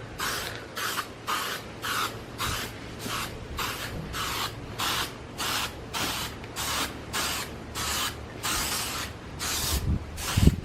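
Aerosol can of primer sprayed in short, quick bursts, about three a second, with wind rumbling on the microphone.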